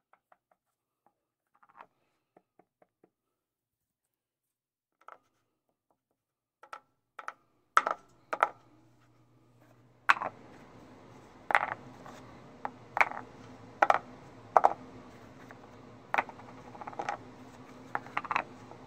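Cork coasters handled and set down on a wooden surface: scattered light clicks at first, then from about eight seconds in a string of sharper knocks and taps over a steady low hum.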